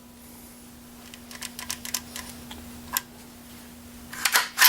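Ruger 10/22 rifle's mechanism worked by hand during a post-reassembly function check: a few light metallic clicks, then sharper clicks near the end as the safety and action are operated. A faint steady hum runs underneath.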